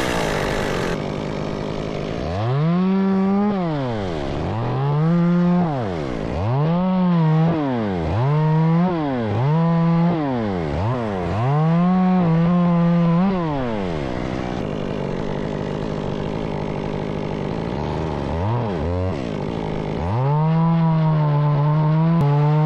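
Two-stroke chainsaw revved in about seven quick bursts, each rising to full speed and dropping back, then idling. It blips twice more and is held at full speed near the end.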